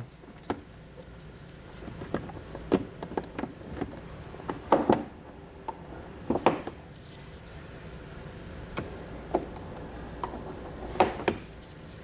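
Plastic underbody panel of a 2021 Hyundai Palisade being pushed back into place by hand: irregular plastic clicks and knocks as it is fitted against the body, over a low steady background hum.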